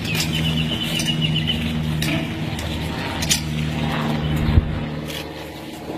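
A steady low mechanical hum, engine-like, with scattered sharp clicks, a short high warbling trill in the first second and a half, and a single thump about four and a half seconds in.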